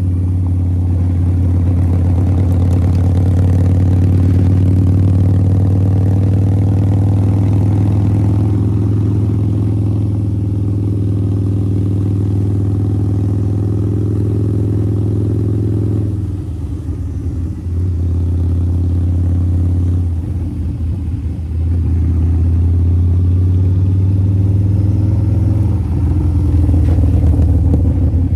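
Harley-Davidson V-Rod's 1250 cc liquid-cooled V-twin running under way with a deep, steady hum. It dips twice in the middle and then grows louder near the end.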